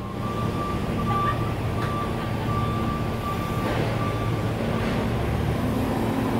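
Subway train rumbling steadily with a faint, steady high-pitched whine, the rumble building slightly near the end as the train draws closer.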